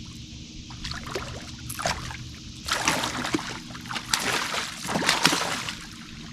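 Water splashing and sloshing in a series of irregular bursts from about a second in until near the end, over a steady low hum.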